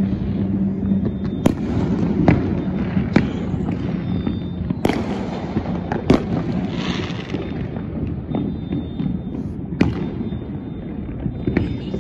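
Fireworks going off: a continuous low rumble of many bursts with sharp, louder bangs every second or two, and a brief crackling hiss about seven seconds in.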